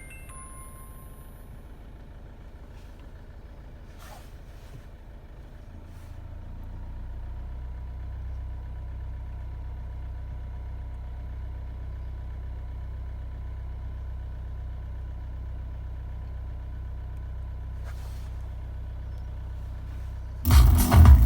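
Low steady hum in a car cabin that grows louder about six seconds in, with a faint thin whine above it and a couple of soft clicks. Near the end, loud music from the car's multimedia stereo suddenly comes on.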